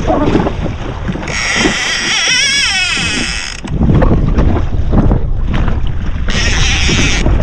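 Fishing reel's drag screaming as a hooked fish pulls line off, for about two seconds starting a second in and again briefly near the end, over steady wind and water noise.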